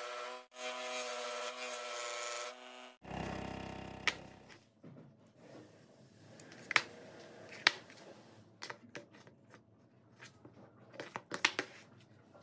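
Scroll saw running and cutting through plywood with a steady motor hum, stopping about three seconds in. After it, a few sharp wooden knocks as wooden pieces are handled and set down on a table, two loud ones in the middle and a quick cluster near the end.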